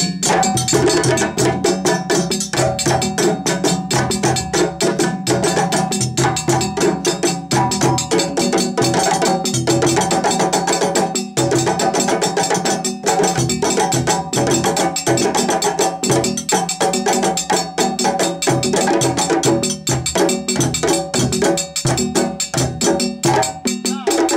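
West African drum ensemble playing a fast, steady rhythm: several djembes struck with bare hands over the lower dundun drums, with a metal bell ringing in time.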